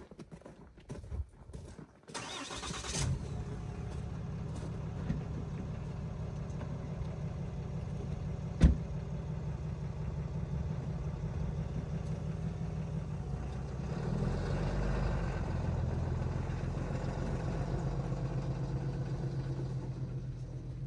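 A vehicle engine is started about two seconds in and settles into a steady idle. A single sharp knock sounds partway through, and the engine gets louder about fourteen seconds in.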